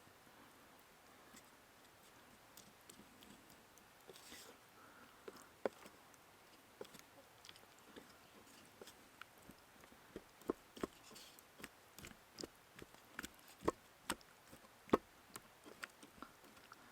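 Scattered light clicks and taps, sparse at first and coming more often from about ten seconds in.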